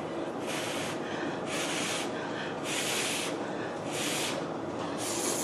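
A person breathing noisily through the nose: five hissing breaths, about a second apart.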